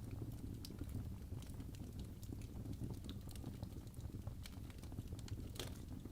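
Wood fire burning in a fireplace: a low steady rumble of flames with scattered sharp crackles and pops, the loudest pop about five and a half seconds in.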